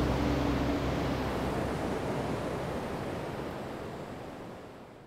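Steady rushing noise of wind and water, fading out gradually to nothing. The last held low notes of background music end about a second in.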